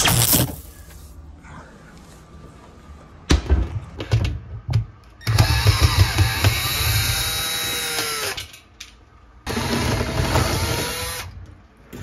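Cordless drill backing out screws in two runs of the motor: one of about three seconds starting around five seconds in, and a shorter one near the end, its pitch bending as the speed changes. A few knocks from handling come before it.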